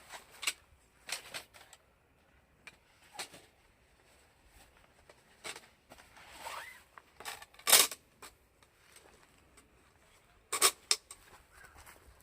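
Scattered clicks, knocks and rustles of camping gear being handled. The loudest is a sharp clack about eight seconds in, followed by a quick double clack near eleven seconds.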